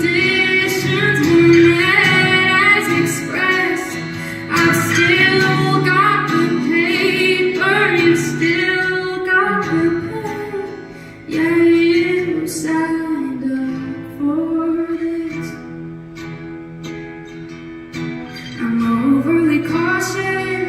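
A woman singing a slow original song live with instrumental accompaniment, the sung lines held and bending in pitch; the music softens in the second half and swells again near the end.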